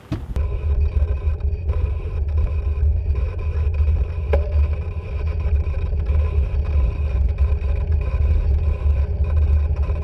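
A steady low rumble, with a short click about four seconds in.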